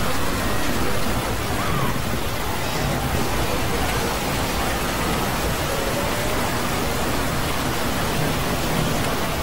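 A dense wash of many video soundtracks layered on top of one another, blurred into a steady, noise-like hiss, with faint voices and short gliding tones just showing through.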